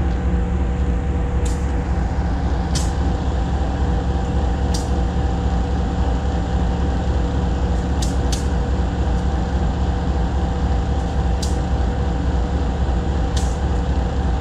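Diesel-electric freight locomotive idling close by: a steady low engine rumble with two steady whining tones over it, and a few short, sharp clicks scattered through it.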